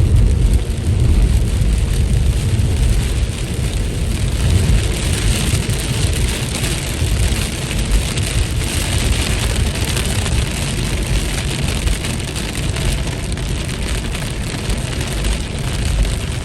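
Steady rain falling, a continuous hiss of drops, over a heavy low rumble.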